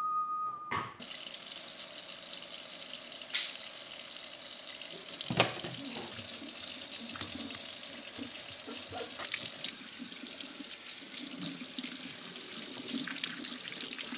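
Kitchen faucet running full onto a shotgun held in a stainless steel sink, a steady splashing rush of water, with one sharp knock about five seconds in. A short whistled note sounds at the very start, just before the water comes on.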